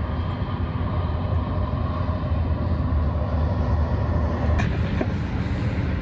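Steady low rumble of distant vehicle traffic, unbroken throughout.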